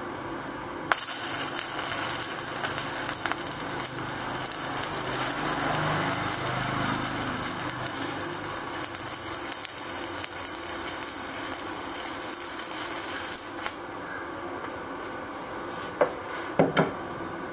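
A power tool running steadily with a rattling, hissing noise, switched on about a second in and cut off abruptly after about twelve seconds, followed by a few short knocks.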